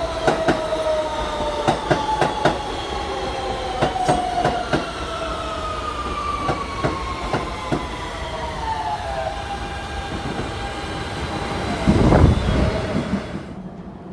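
New York City subway train running past on the track, its electric motors whining in several tones that fall slowly in pitch as it slows, with sharp irregular clicks of the wheels over rail joints. A louder low rumble swells about twelve seconds in, then the sound drops away near the end.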